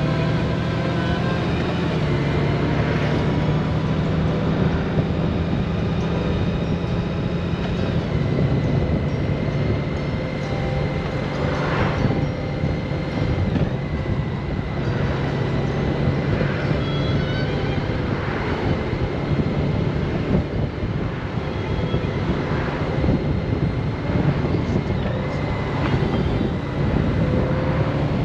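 Honda Gold Wing touring motorcycle cruising along a road: a steady engine drone under constant wind and road noise.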